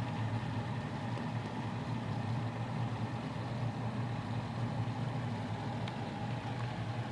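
Steady low hum of background room noise, even and unchanging throughout.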